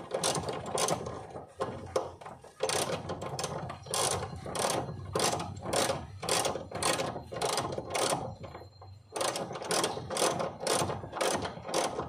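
Ratchet wrench clicking in quick repeated strokes, a little over two a second, as it turns a seat belt's lower anchor bolt. The strokes pause briefly about eight seconds in.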